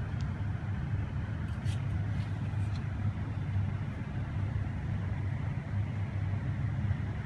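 Steady low background rumble, with a few faint light clicks about two seconds in from handling a polymer-frame pistol.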